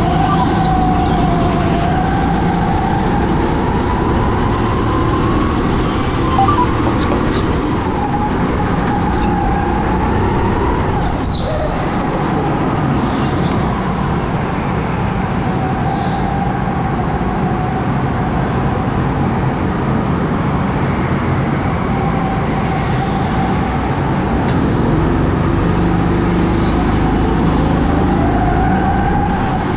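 Sodi SR5 rental kart's engine running at racing speed. Its note climbs slowly, drops sharply about a third of the way in, then climbs again near the end. A few short high squeals come near the middle.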